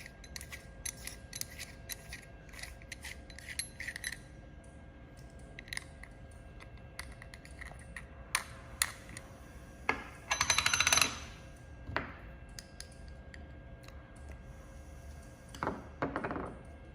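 Light clicks and taps of small metal parts being handled while the protection lens is taken out of a jewelry laser welder, with a brief metallic rattle about ten seconds in and a few more clinks near the end.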